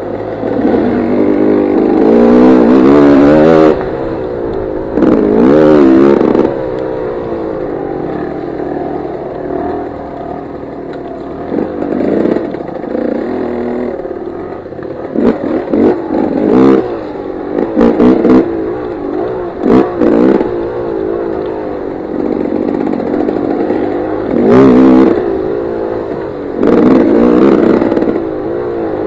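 Dirt bike engine on a trail ride, its pitch rising and falling as the throttle is opened and eased off over and over. It has several louder stretches of a second or two, and a quick run of short blips partway through.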